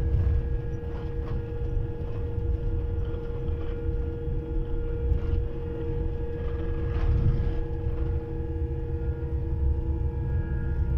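Cabin noise inside a Boeing 787-8 airliner on the ground near the end of the flight: a steady low rumble with two constant hum tones and a few light knocks and rattles.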